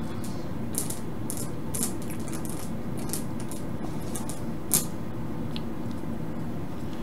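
Cloth scrubbing over the solder joints of a small circuit board to clean off flux: a run of short, irregular scratchy rasps, the sharpest about two-thirds of the way in, over a steady low hum.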